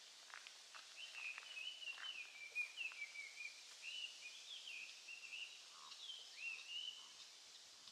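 A songbird singing one long, unbroken warbling song that wavers up and down in pitch, faint against quiet outdoor ambience, with a few light ticks near the start.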